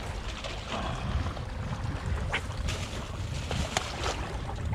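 Wind buffeting the camera microphone over sea water washing against rocks, a steady low rumble and hiss. A few sharp clicks fall about halfway through and near the end.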